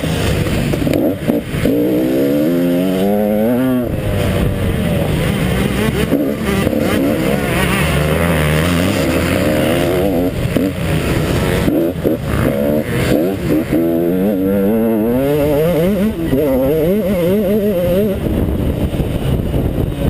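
KTM 150 XC two-stroke dirt bike engine revving up and down repeatedly under hard riding, its pitch climbing sharply several times and dropping between gear changes and throttle lifts.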